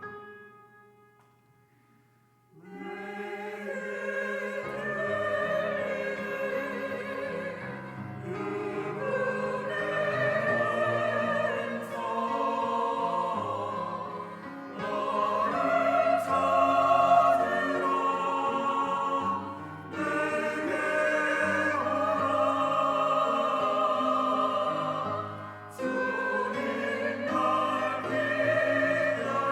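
Church choir singing a sacred anthem with accompaniment. The music fades almost to nothing just after the start, and the choir comes back in about two and a half seconds in, then sings on in long sustained phrases.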